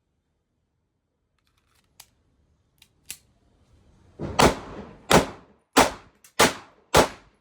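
Romanian TT 30-bore pistol (7.62×25mm Tokarev) fired five times in quick succession, about two-thirds of a second apart, after a few light clicks of handling.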